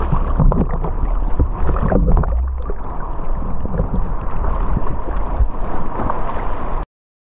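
Wind buffeting the microphone over rushing, splashing water while riding a downwind foil board, with a heavy low rumble that rises and falls in gusts. It stops abruptly near the end.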